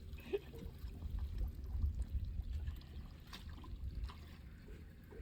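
Lake water splashing and lapping at a small fishing boat, over a heavy low rumble from wind on the microphone, with a couple of light knocks a little past the middle.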